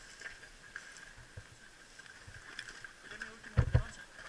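Footsteps and gear rustling as players move through dry scrub and gravel, with a faint steady high tone underneath. About three and a half seconds in comes a heavy, dull thump on the microphone.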